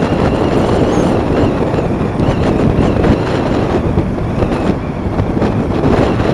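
A motorcycle riding steadily at road speed: a loud, continuous rush of wind on the microphone mixed with engine and tyre noise.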